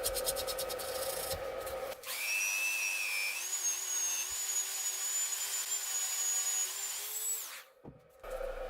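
Small electric power tool, drill-like, starting up about two seconds in and running at a steady whine for about five seconds, then winding down and stopping. Before it, a scratchy scraping sound over a steady hum.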